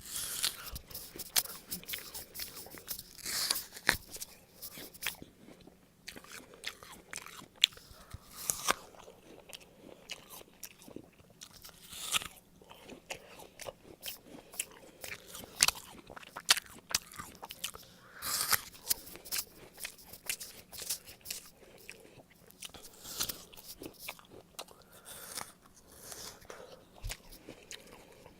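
Close-miked chewing of a Golden Delicious apple: irregular crisp crunches of the skin and flesh with wet, juicy mouth sounds.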